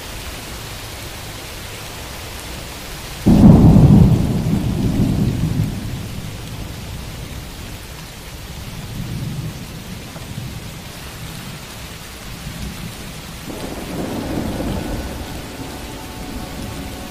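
Steady rain with a sudden loud thunderclap about three seconds in that rolls away over a few seconds, then softer rumbles of thunder twice later on.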